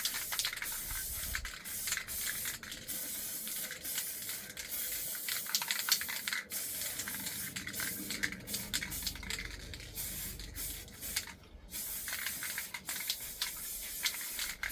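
Hand work on aluminum crab-scoop parts: irregular scraping and rubbing with many small clicks and ticks over a hissy background, with a brief break about eleven seconds in.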